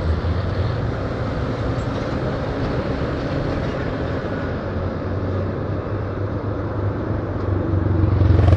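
Yamaha Fazer 150's single-cylinder four-stroke engine running under way in traffic, with wind and road noise; it grows louder near the end.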